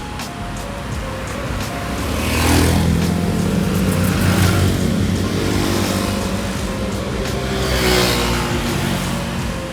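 Motor vehicles passing on the road, their engines humming and tyres whooshing, swelling once about two and a half seconds in and again near the end, with background music underneath.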